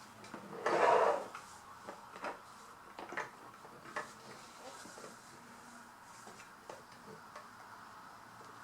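Light handling sounds of a plastic toy set and its sticker sheet: a few small, scattered clicks and taps, with a short breathy rustle about a second in.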